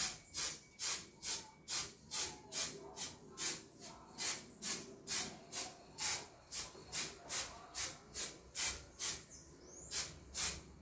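Aerosol spray paint can hissing in short, evenly spaced bursts, about two a second, as a coat of paint goes onto a metal clock part.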